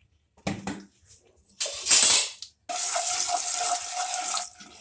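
Potato pieces frying in hot oil in a pan: a loud steady sizzle that starts suddenly just under three seconds in, after a couple of short clatters.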